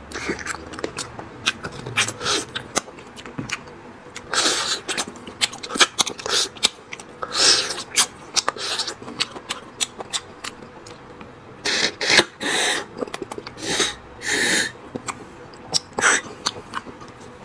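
Slurping as marrow is sucked out of braised lamb marrow bones, in several hissing sucks of about half a second each, with lip smacks and chewing clicks between them.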